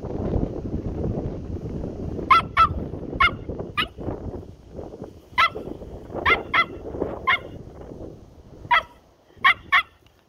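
Pomeranian barking in short, sharp, high-pitched yaps, about eleven barks, singly and in quick pairs.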